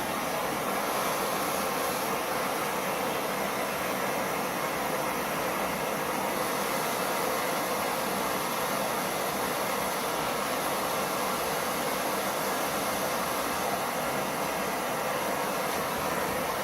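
Handheld gas soldering torch burning with a steady hiss, heating a copper pipe joint on a shower valve for sweat soldering.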